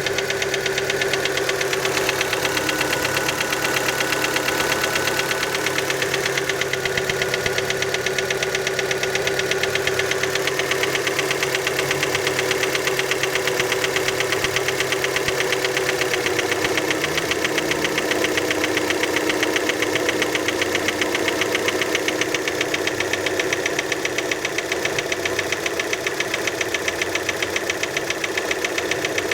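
Fiat Panda petrol engine idling with a rapid, even knock, which many take for piston skirt slap after a cold start. A little over halfway through, the engine's tone drops slightly.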